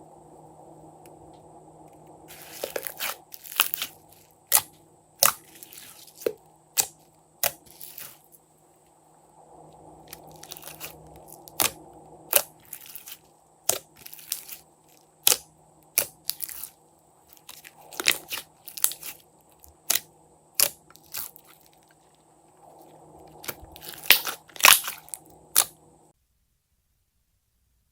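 Slime being pressed and squeezed, a run of sharp crunches and crackles about one or two a second over a faint steady hum, stopping shortly before the end.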